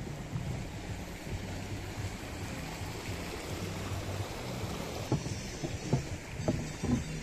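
Steady low rumble of outdoor background noise, with a few soft knocks in the last couple of seconds.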